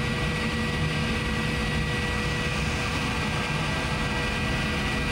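The electric parking brake motor in the 2016 Honda Civic's rear brake caliper runs steadily, a low hum with a thin, even whine, as it retracts the brake pad actuator for brake pad service mode.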